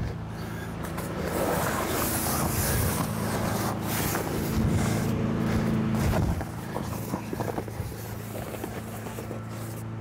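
A motor vehicle engine running steadily, its hum swelling louder for a few seconds in the middle and then easing off.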